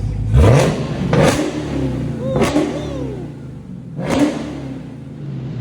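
Dodge Challenger SRT Super Stock's supercharged V8 revved in about four sharp throttle blips, each falling back toward idle, with its newly fitted electronic exhaust valves open.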